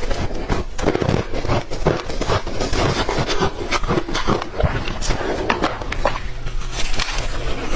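Ice being bitten and chewed in the mouth: a dense, irregular run of sharp crunches and cracks.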